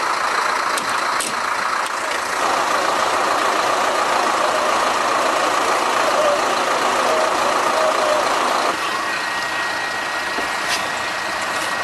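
Armoured military vehicle's engine running steadily, a noisy drone that gets louder about two seconds in and drops back about nine seconds in, with a couple of faint clicks.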